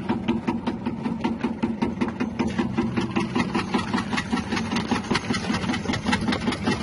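Electric chip slicing machine running: a steady motor hum with rapid, regular clicking from its rotating cutter.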